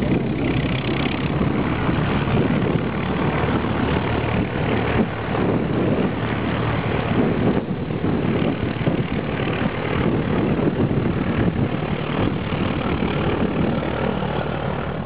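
de Havilland Chipmunk light aircraft's piston engine and propeller running steadily as the plane taxis.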